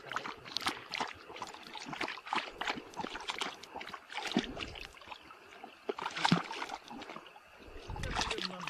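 A husky-type dog lapping water at the water's edge: quick, irregular splashy laps, about three a second.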